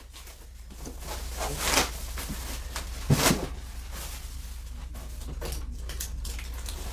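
Clear plastic packaging bag rustling and crinkling as it is handled, with a single knock about three seconds in.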